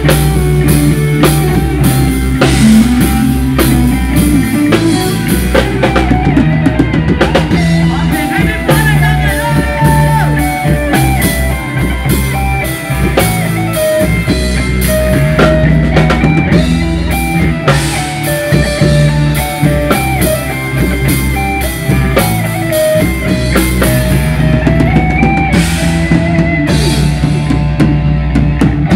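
Heavy metal band playing: a drum kit played hard with frequent cymbal hits, under a guitar melody of held notes that step up and down over a steady low bass line.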